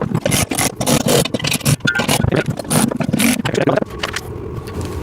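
Bolts on a steel exercise-machine frame being tightened down with a tool: a rapid, irregular run of clicks and rattles for nearly four seconds, easing into a softer, steadier noise near the end.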